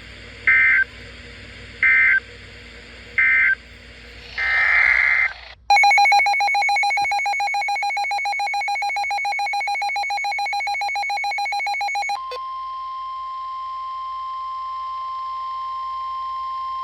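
Emergency Alert System tones. Three short bursts of SAME digital data and a longer data burst come first. About six seconds in, the two-tone EAS attention signal starts; about twelve seconds in it gives way to the steady single-tone NOAA Weather Radio warning alarm.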